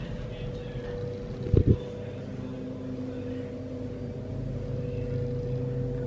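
Steady machine hum made of several held tones over a low rumble, with two quick knocks about a second and a half in.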